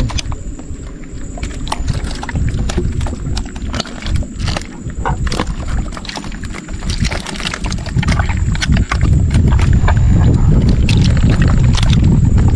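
Live eeltail catfish and spotted scats flopping in a wooden boat hold with a little water: scattered wet slaps and knocks against the planks, with water sloshing. A low rumble underneath grows louder about eight seconds in.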